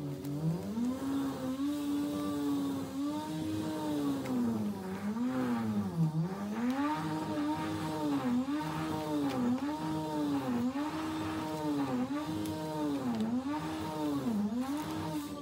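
A small engine running hard and revving up and down over and over, its pitch dipping and recovering about once a second.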